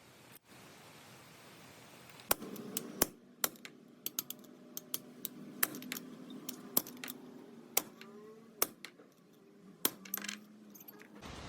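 Irregular sharp metallic clicks and clinks, roughly one or two a second, from metal tools and parts being handled on a workbench during a hydraulic jack repair. A faint low steady hum runs beneath them.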